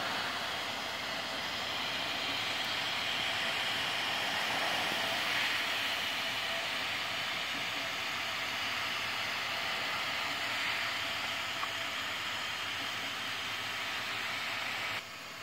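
Home-built 3D printer running mid-print: a steady whirring hiss from its cooling fans and moving motors. The level drops suddenly just before the end.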